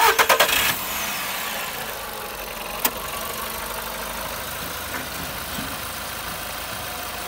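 Volkswagen Polo sedan's 1.6-litre four-cylinder petrol engine (CFNA) is cranked and catches within the first second, then idles steadily with no piston knock. A single sharp click comes about three seconds in.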